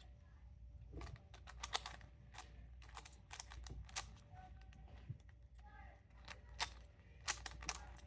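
Plastic speed Rubik's cube being turned quickly during a solve: an irregular run of sharp clicks and clacks, some coming in quick clusters.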